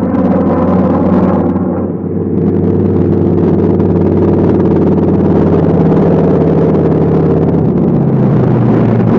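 Piston aircraft engines droning steadily, the drone of a P-47 Thunderbolt's radial engine, with its pitch changing about two seconds in and again near the end.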